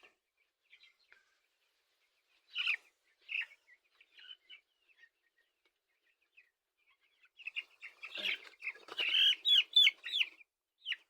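Two-week-old broiler chicks peeping: scattered short calls at first, then a dense run of loud cheeps from about seven to ten seconds in.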